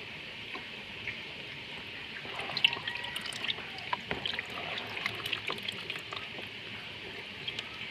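Water trickling and dripping into a tub of fingerlings, with a run of small splashes and sharp ticks starting about two seconds in.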